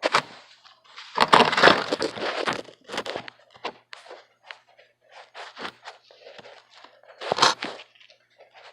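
Handling noise of the camera being moved and set in place: irregular knocks, scrapes and rustling, loudest a second or so in and again with a sharp knock near the end.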